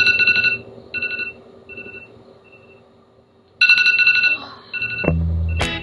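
An electronic ringing tone like a phone ringtone: a fast trill of high tones, sounded twice, each followed by fading echo-like repeats. Music with a heavy bass begins near the end.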